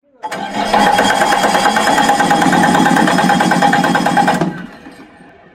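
Cummins QSL9 inline-six diesel engine spinning with a loud, fast, even mechanical whir and a steady whine for about four seconds, then cutting off and winding down about four and a half seconds in.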